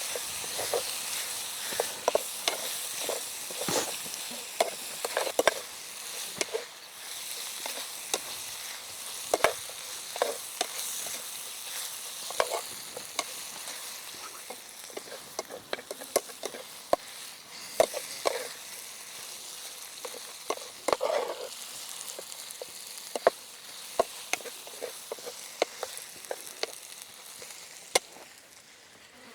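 Food frying in a pan over a campfire with a steady sizzle, stirred with frequent sharp clicks and scrapes of the utensil. The sizzle thins near the end.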